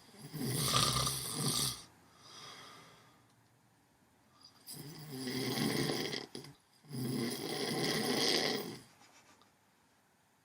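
Someone asleep snoring a bit loud: three long snores, with a softer breath between the first two.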